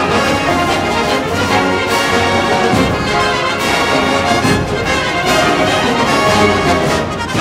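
Orchestral music with brass to the fore, playing steadily.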